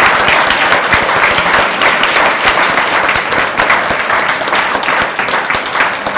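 An audience applauding warmly, a dense patter of many hands clapping that eases slightly toward the end.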